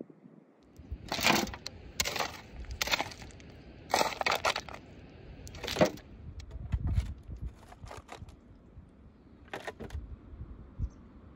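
A shovel blade scraping into and scooping loose, dusty soil, with a run of sharp scrapes and tosses in the first six seconds, then a few fainter ones near the end.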